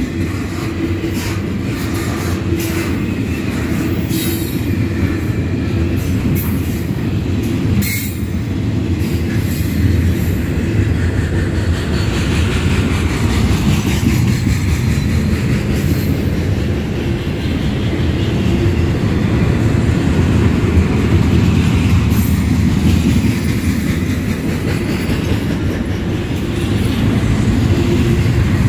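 Double-stack intermodal freight cars rolling past, a steady low rumble of steel wheels on rail. Clicks over the rail joints come mostly in the first ten seconds, and a faint wheel squeal is heard near the middle.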